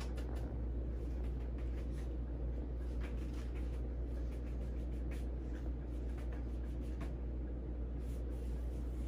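Light, irregular scratching and soft taps on the floor of a puppy pen, over a steady low hum.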